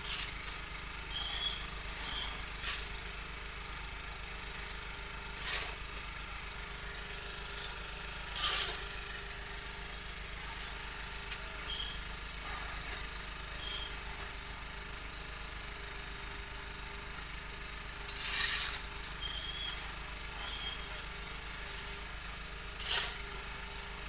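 An engine runs steadily with a low hum at a construction site, while about six short rough scrapes, like shovels digging into sand and gravel, come every few seconds.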